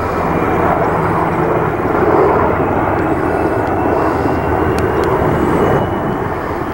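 Steady drone of low-flying military aircraft overhead: a four-engine C-130-type tanker's turboprops together with the rotors of two HH-60G Pave Hawk helicopters flying in formation with it.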